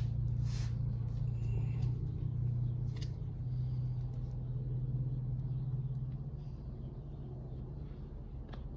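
A steady low machine hum, with a few brief, faint scrapes of a plastic spreader smoothing body filler over bare sheet metal.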